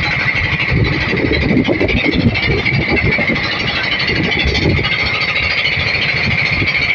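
Small boat engine running steadily, with a fast, even firing rhythm.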